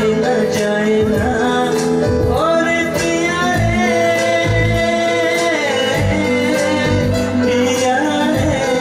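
A man singing through a microphone and PA, holding long notes, over live electronic keyboard accompaniment with a steady drum beat.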